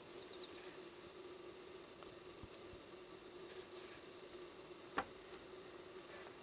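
Faint bush ambience: a steady low hum under a faint high tone, with two short runs of quick high chirps, one at the start and one a little before the middle, and a single sharp click about five seconds in.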